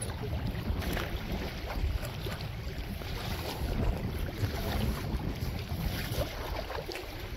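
Wind buffeting the microphone, an uneven low rumble that rises and falls in gusts, with a few faint light knocks.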